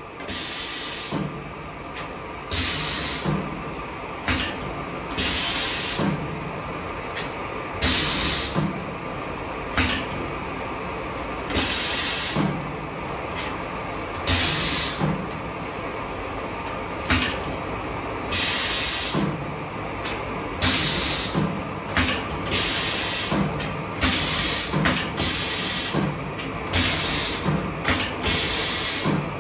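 Pneumatic string lasting machine for shoes working in cycles: short, loud hisses of compressed air every second or two, each opening with a low thud, over a steady motor hum.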